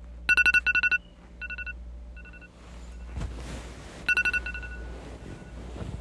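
iPhone Clock alarm ringing: fast runs of electronic beeps in bursts, a loud burst followed by fainter repeats, then another loud burst about four seconds in. A rustling noise comes in over the second half.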